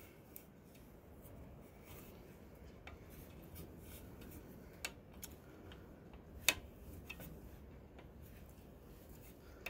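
A wrench working the oil-line fitting on a Ford 8N tractor: a few faint, scattered clicks, the sharpest about six and a half seconds in, over a low steady background.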